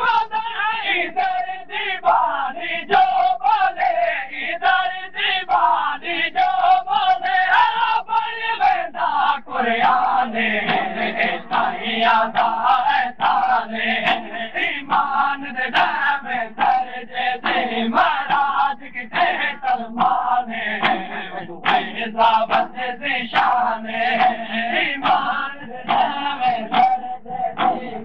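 A large crowd of men chanting a Shia noha in chorus, with rhythmic chest-beating (matam): hands slapping on chests in unison, about two strikes a second.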